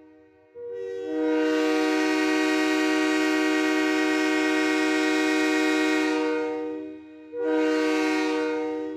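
Multi-chime train horn sounding a chord of several notes: one long blast of about six seconds, its lowest note coming in a moment after the others, then a short second blast near the end.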